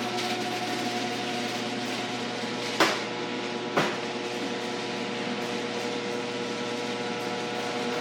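A steady mechanical hum made of several held tones, with two sharp knocks about a second apart, a little under three seconds in.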